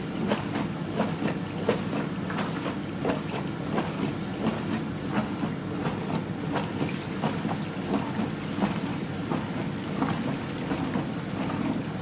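Hotpoint Supermatic twin tub washing machine running its wash cycle: a steady motor hum with the pulsator churning and splashing the soapy water in the wash tub.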